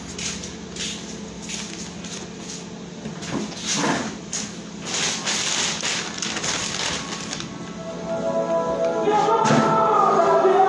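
Rustles and knocks of a phone being handled and moved about, over a steady low hum. About eight seconds in, music with sustained chords comes in and grows louder.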